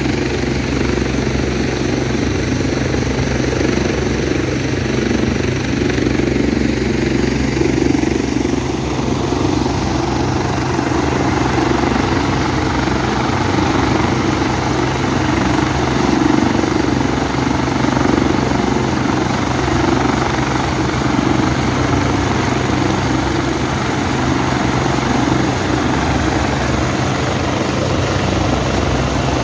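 Helicopter standing on a helipad with its engines running and main and tail rotors turning: a steady engine drone with rotor noise, which grows hissier about nine seconds in.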